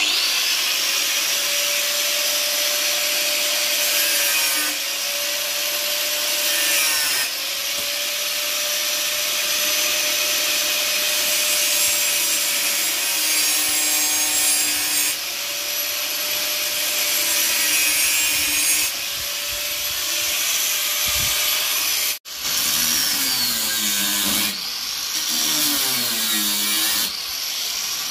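Electric angle grinder with a thin cut-off disc cutting through sheet steel: a loud, steady grinding hiss over the motor's whine, which dips and recovers as the disc is pushed into the cut. The sound stops for an instant about two-thirds of the way through, and the whine then wavers up and down.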